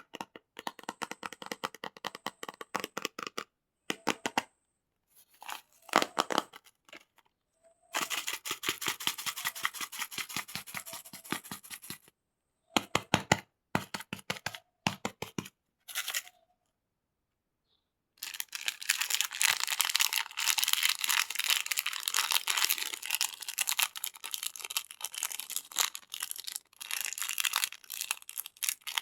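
Plastic candy wrappers crinkling and crackling as they are handled and torn open. The sound comes in short stretches of dense crackle cut apart by sudden dead-silent gaps, then runs on continuously through the second half.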